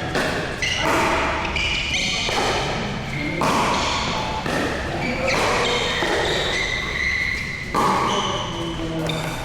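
Pickleball paddles striking the plastic ball in a rally: sharp pops at irregular intervals of about half a second to a second and a half, with players' voices in between.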